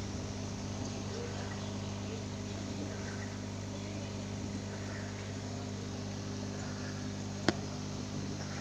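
Steady electric hum of an aquarium pump over the rush and splash of water pouring into the tank. A single sharp click comes near the end.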